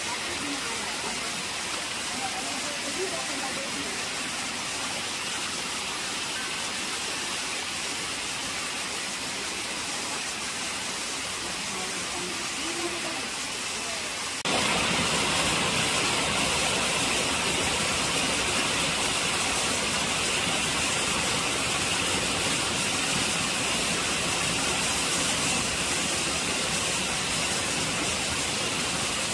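Steady rushing of a mountain stream's water pouring over rocks. It gets suddenly louder about halfway through and stays that way.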